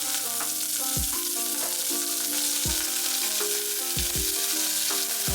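Hot oil sizzling steadily in a pan as garlic, red and green chilies and curry leaves fry with mustard seeds for a tempering, with some stirring.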